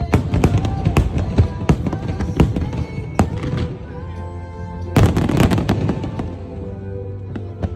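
Fireworks display going off: a rapid string of sharp bangs for the first three seconds or so, then a dense crackling volley about five seconds in, with music playing underneath.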